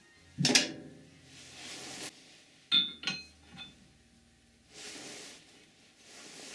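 Steel parts being handled in a metal workshop: a ringing metal clank about half a second in and a few lighter clinks around three seconds in, with short stretches of rushing noise between them.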